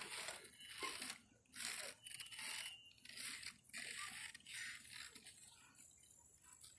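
Footsteps on the wooden planks of a rope suspension bridge, a gritty step about every three-quarters of a second, growing fainter near the end.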